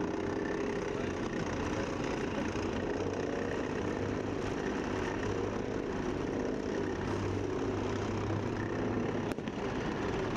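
Armoured military vehicle engines running steadily, a continuous deep engine hum, with a brief click about nine seconds in.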